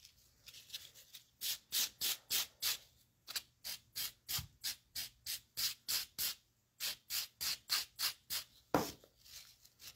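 Spongy nail buffer, coarse side, rubbed back and forth over sculpted acrylic in quick even strokes, about three a second, pausing briefly twice: smoothing the edges and back of the filed piece.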